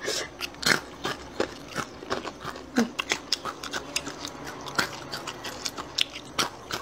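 Close-miked crunching and chewing of crispy batter-fried dried chilies (Guizhou jiejiecui snack), many sharp, irregular crunches as each bite breaks up.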